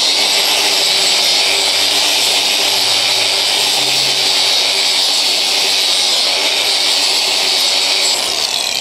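Angle grinder with a wire-wheel brush running steadily at full speed against the back face of a wheel spacer, scrubbing it clean to a flat surface. The whine winds down in pitch near the end.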